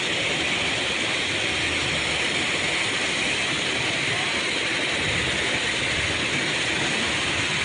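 Fast-flowing flash floodwater rushing in a steady, unbroken torrent of water noise.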